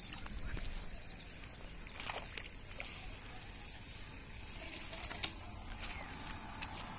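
Steady outdoor background noise on a grassy bank, with a few scattered faint clicks and rustles.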